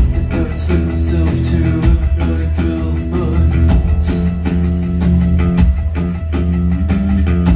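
Live post-punk band playing loud through a venue PA, heard from within the crowd: a driving bass line and steady drum beat under repeating guitar and keyboard chords.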